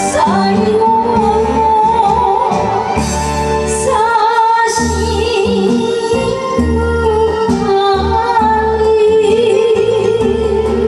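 A woman singing into a microphone over instrumental backing music, holding long notes with a wavering vibrato.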